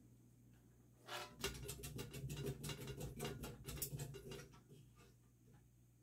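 Palm-Air hugger ceiling fan running on high with a faint steady hum, and from about a second in a quick, irregular rattle of clicks lasting about three seconds, which the owner takes for the light kit's globe rattling.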